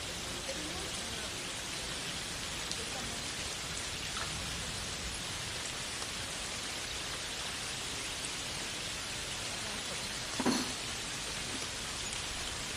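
Steady rain falling, an even hiss of many drops. One brief, louder knock or drip about ten and a half seconds in.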